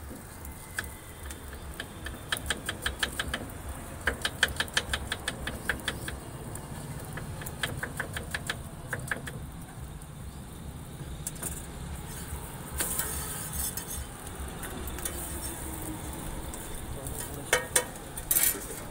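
Knife chopping quickly on a wooden cutting board, in runs of about four to five chops a second, with a few more chops near the end. A low steady rumble runs underneath.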